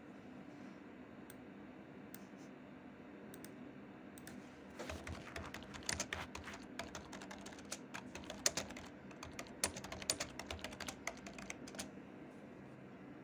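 Typing on a computer keyboard: a few single clicks, then a run of fast, irregular key clicks from about five seconds in until shortly before the end, over a faint steady hum.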